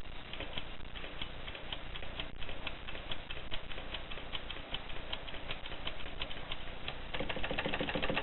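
1950s Voss manual typewriter being typed on: a steady run of sharp, irregular key clacks, several a second, turning into a louder, denser clatter near the end.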